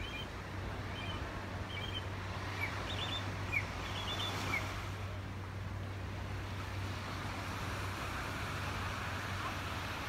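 Gentle ocean waves washing onto a sandy beach in a steady surf wash, under a steady low hum. A small bird chirps a series of short notes during the first half.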